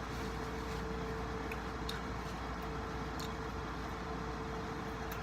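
Steady background hum and hiss with one constant mid-pitched tone, with a few faint clicks from eating fried chicken.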